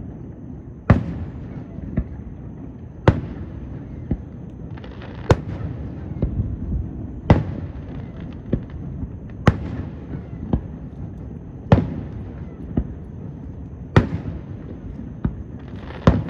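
Distant aerial fireworks shells going off: a sharp bang about every two seconds, each followed about a second later by a fainter bang.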